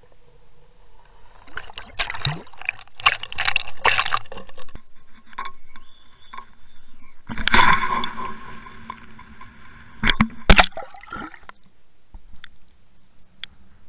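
Water splashing and sloshing against a Waterwolf underwater camera as it breaks the surface and goes back under. A run of splashes in the first part, one loud splash a little past the middle, then two sharp smacks, after which it settles to a faint underwater hush.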